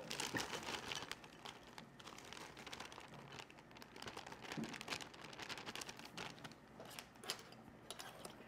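Frozen corn kernels clicking as they are shaken out of a crinkling plastic bag into a glass bowl: a scatter of small ticks and rustles.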